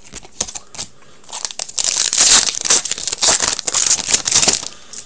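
Foil wrapper of a 2016-17 Upper Deck Ice hockey card pack being torn open and crinkled by hand. A few light clicks come first, then about three seconds of dense crinkling from around one and a half seconds in.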